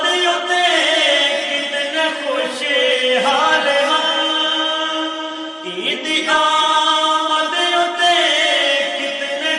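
Men's voices singing a naat unaccompanied, a farewell-to-Ramadan nazm, in three long, held and ornamented phrases.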